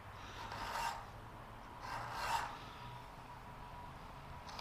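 Brand-new three-corner file being pushed across the mashed first threads of a one-inch screw held in a vise, dressing the threads: three slow, faint rasping strokes.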